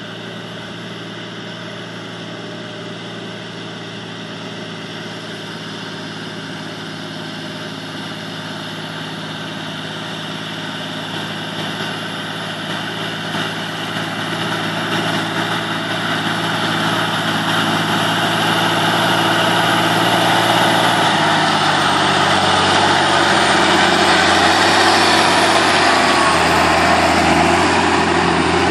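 John Deere tractor's diesel engine running steadily as it pulls a loaded silage trailer, growing louder as it approaches and passing close near the end.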